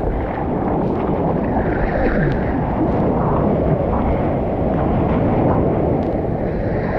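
Steady rush of seawater and splashing close by as a surfer paddles into and rides a small wave.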